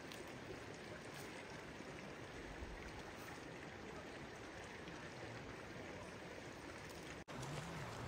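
Steady rushing outdoor noise, broken off for an instant near the end.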